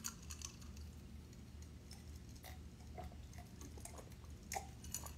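Faint sounds of a person drinking from a cup: a few small clicks and gulps over a low steady hum.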